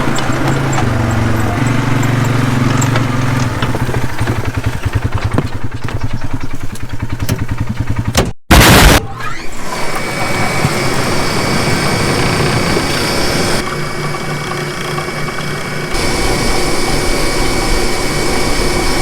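A vehicle engine running, its pitch shifting a couple of times. After an abrupt cut with a brief loud burst, a large irrigation well pump runs steadily with a thin high whine.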